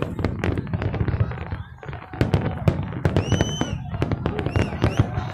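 Fireworks display: a dense, irregular run of bangs and crackling, with a short high whistle about three seconds in.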